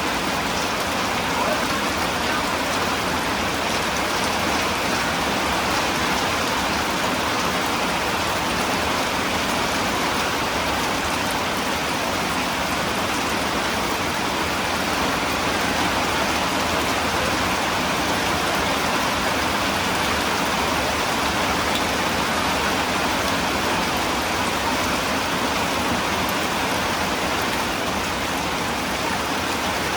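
Rain falling steadily, an even, dense hiss that keeps a constant level.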